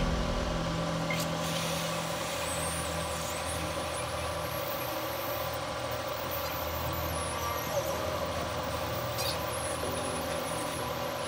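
Hot air rework gun blowing steadily over a laptop motherboard's graphics chip, reflowing its solder to mend joints that no longer reach the board.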